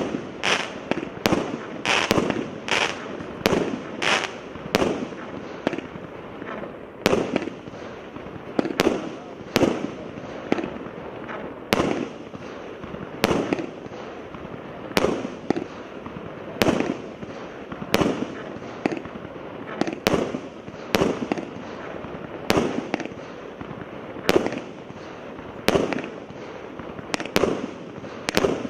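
Multi-shot consumer firework cake of mixed 0.8, 1 and 1.2 inch calibres firing shot after shot, about one a second. Each shot is a sharp report followed by a short fading tail.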